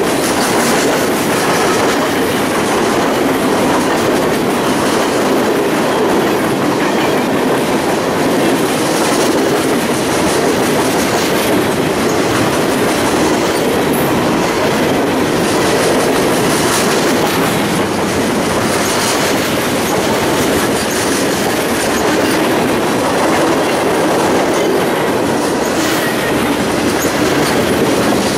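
Freight train cars rolling past at close range: steel wheels on rail making a steady loud rumble and rattle, with a regular clicking as each set of wheels goes by.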